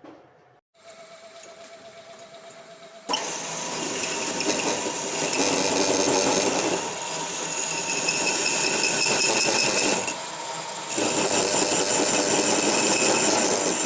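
Heavy metalworking machinery running with a loud, dense mechanical clatter. It starts suddenly about three seconds in after a faint steady hum, eases briefly near ten seconds, then picks up again.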